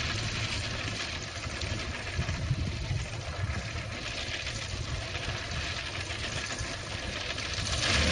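Chilton DW-1's small 35 horsepower Carden-Ford engine running steadily as the light monoplane rolls across the grass.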